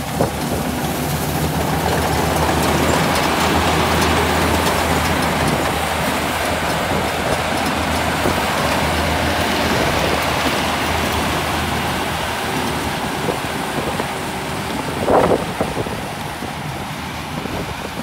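Tracked rice combine harvester working in the field: its diesel engine running steadily under the clatter of the cutting and threshing works. It is loudest a few seconds in and grows quieter as the machine moves away, with a brief louder burst about fifteen seconds in.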